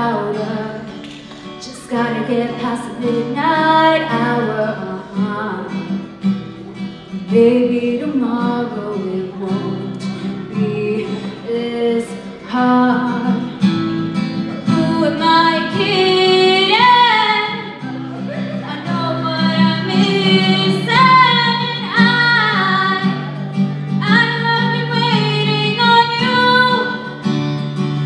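A young woman singing into a microphone, accompanied by acoustic guitar: a live vocal and guitar duet.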